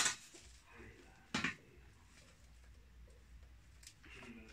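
Broom straw and a steel broom-sewing frame being handled: a sharp clatter about a second and a half in, with quieter rustles and knocks around it over a faint steady hum.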